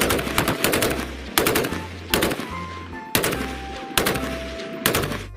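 Machine-gun sound effect: about six short bursts of rapid gunfire, roughly one a second, over background music with a low beat.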